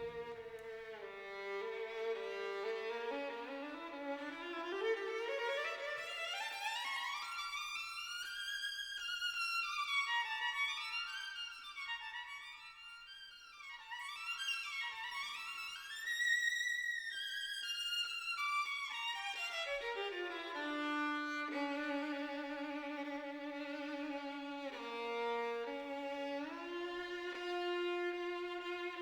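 Background music: a slow melody of wavering held notes that climbs high through the middle, then falls back and settles on lower sustained notes.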